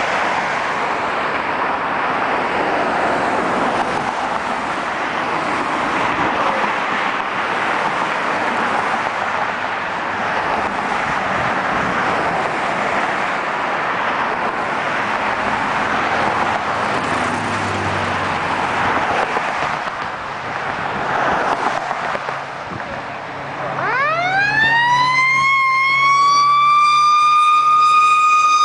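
A steady rushing noise of road traffic, then about 24 seconds in an approaching hook-and-ladder fire truck's siren winds up, rising steeply in pitch and then holding a steady high wail.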